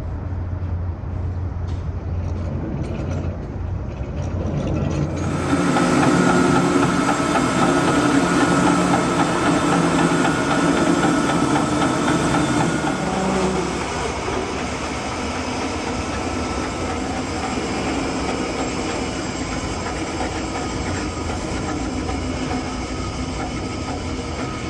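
Band sawmill running, its engine humming at first; about five seconds in the blade goes into the walnut log and it cuts a 4/4 board, the sound jumping louder and fuller and staying so.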